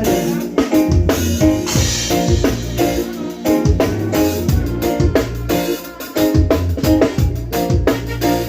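Reggae instrumental: drum kit with rimshots, a deep bass line and short repeated chords in a steady groove.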